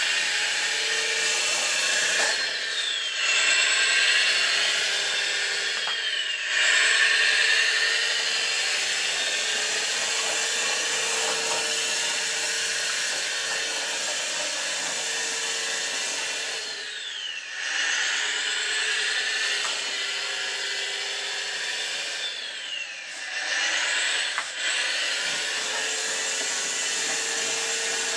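Bruder Volvo A60H RC dump truck driving: its electric drive and gearing give a steady, gritty mechanical noise, mixed with the diesel engine sound of its onboard sound module. The noise eases off and picks up again several times as the truck slows and moves off.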